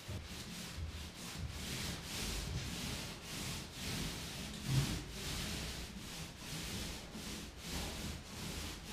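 Paint roller on an extension pole rolling wet coating onto a drywall wall, a swishing rub in repeated up-and-down strokes about once a second, with a soft thump about five seconds in.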